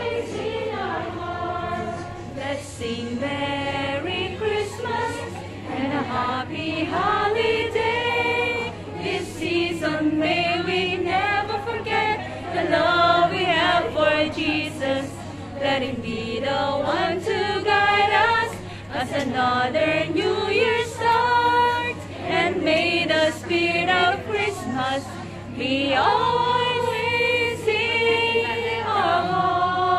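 Music for a group dance: a song carried by choir-like group singing, with voices gliding up and down without a break.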